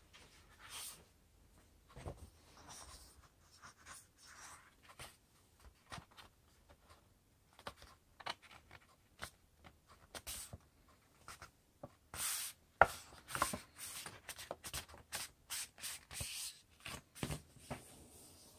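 A sheet of paper being handled and folded on a tabletop: rustling, rubbing and short sharp creasing strokes, coming thicker and louder in the last third.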